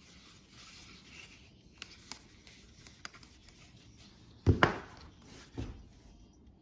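Handling noise on a hard surface: a few light clicks and rubbing, then two sharp knocks in quick succession a little past halfway and a softer knock after, as things are set down.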